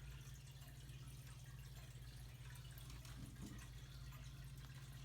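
Near silence: a faint, steady low hum of room tone.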